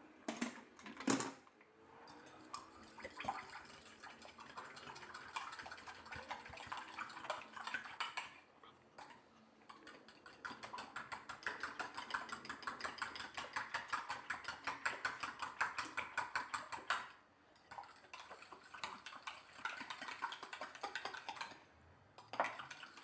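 Eggs and egg whites being beaten in a mixing bowl with a utensil: rapid, regular clinks against the bowl, pausing briefly twice.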